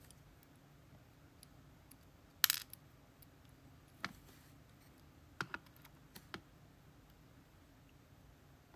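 Scattered small clicks and taps of the pins and other small parts of a disassembled GeGe pExtra+ lock cylinder being handled, the loudest a brief clatter about two and a half seconds in, followed by single clicks and a quick pair.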